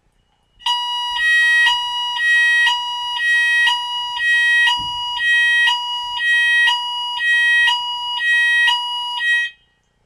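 Electronic fire alarm sounder giving a two-tone signal, switching between a lower and a higher tone about twice a second. It starts just under a second in and cuts off suddenly near the end.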